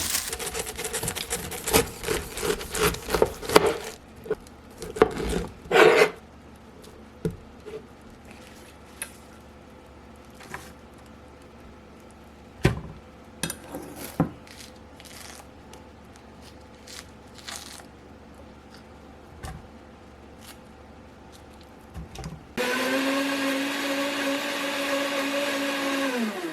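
A run of knocks and clatter from kitchen prep, then an electric countertop blender blending a green smoothie for about four seconds near the end, running at a steady pitch before it cuts off.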